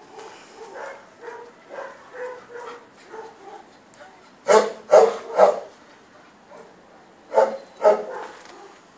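Dog barking: three loud barks in quick succession about halfway through, then two more, with fainter, shorter dog calls before them.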